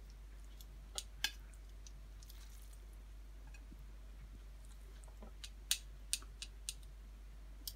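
Metal kitchen tongs clicking against a frying pan and a ceramic plate as spaghetti is served. There are two sharp clicks about a second in and a quick run of about four near the end.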